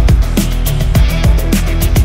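Electronic background music with a steady, driving drum beat and a sustained bass line.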